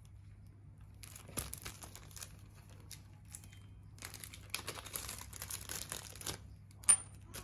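Small clear plastic bag crinkling as it is handled and opened, in bouts of rustling about a second in and again from about four to six seconds. A single sharp click near the end.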